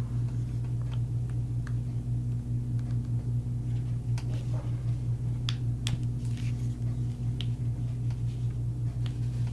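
An iPhone being pressed into a silicone case: scattered small clicks and soft rubbing as the phone is handled and seated, over a steady low hum.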